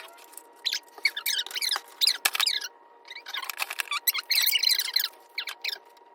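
Packaging being handled: a string of short, irregular squeaky, crinkly rustles, busiest in the middle and latter half.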